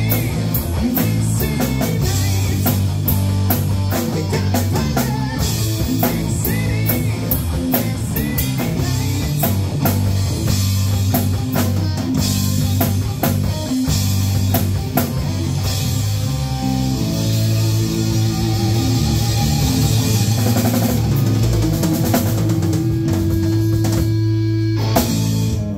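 Live rock band playing an instrumental passage on electric guitar, bass guitar and drum kit. Busy drumming drives most of it, then the last several seconds turn to long held guitar and bass notes as the song winds down.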